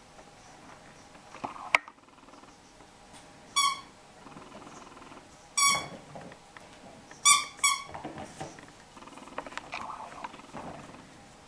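Pink rubber squeaky toy squeaking as a Jack Russell Terrier puppy bites it: four short, high squeaks, the last two in quick succession. A sharp click comes about two seconds in, and softer irregular noises from the puppy fill the gaps between squeaks.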